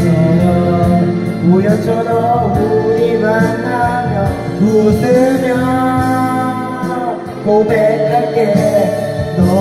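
A man singing a Korean pop ballad into a karaoke microphone over the karaoke machine's backing track, holding long sustained notes.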